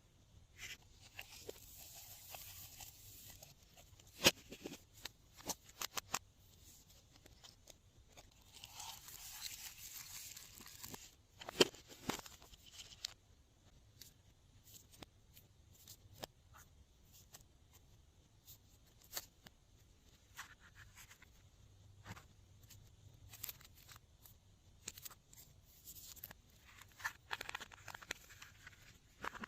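Glossy slime being squished and stretched by hand, with scattered sharp pops and clicks and a few longer crackly, hissing stretches.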